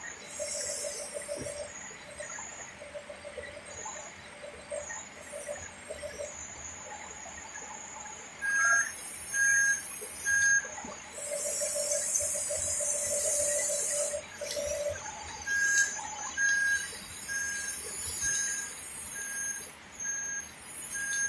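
RC bulldozer reversing beeps sounding about once a second, in two runs, with bursts of hiss and a pulsing electric buzz in between.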